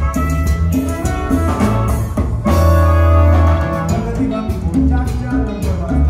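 Live band playing a Latin dance song, with drum kit, bass and steady percussion. About two and a half seconds in, the band hits a loud held chord for about a second, then the beat picks up again.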